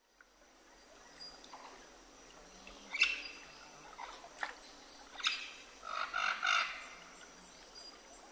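Birds chirping: scattered short calls, then a quick run of three notes about six seconds in, over a faint steady hiss. The sound fades in at the start.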